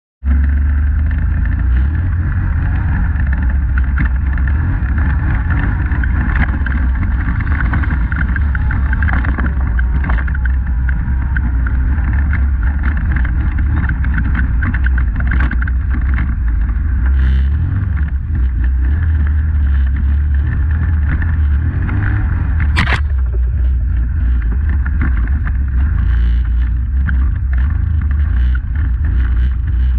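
Polaris Sportsman 850 ATV's twin-cylinder engine running steadily as the quad is ridden, picked up by a GoPro mounted on the machine. A single sharp click about three-quarters of the way through.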